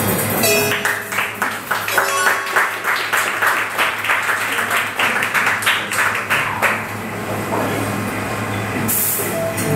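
Audience applauding for several seconds, then dying away; near the end a digital piano begins playing a few held notes.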